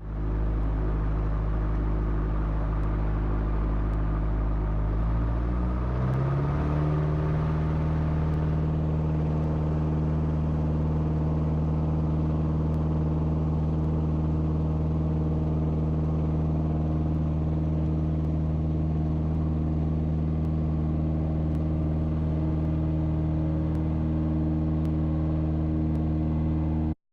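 Rutan Long-EZ's pusher piston engine and propeller heard from the cockpit, opened up for a maximum-performance take-off. The drone climbs in pitch about five to seven seconds in as power comes up, then holds steady through the take-off roll, and cuts off suddenly near the end.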